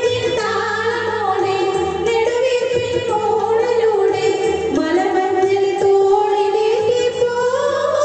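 A woman singing a slow Indian-style melody in long held notes that glide gently between pitches, over a quiet steady accompaniment.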